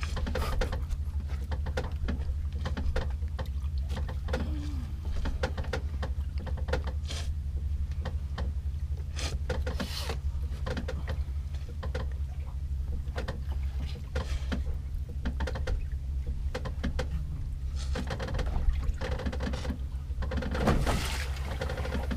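Boat engine running steadily with a low hum, with scattered short knocks and clatter over it.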